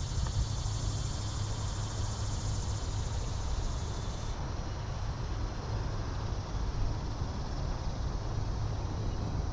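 Wind buffeting the microphone: a steady low rumble with a high hiss over it that drops away abruptly about four seconds in.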